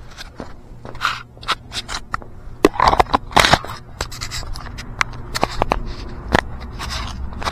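Clatter and scraping of objects being handled and moved around: a run of sharp knocks and clicks with scrapes, loudest about three seconds in.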